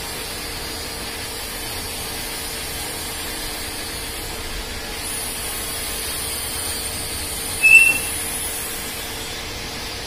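Three-roll angle bending machine running with a steady mechanical hum as a 50 mm steel angle is rolled through it into a curve. A short high squeal stands out about three quarters of the way through.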